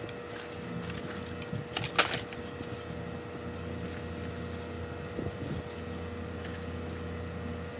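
Steady mechanical hum, likely from a motor or fan unit, with one brief sharp crackle about two seconds in.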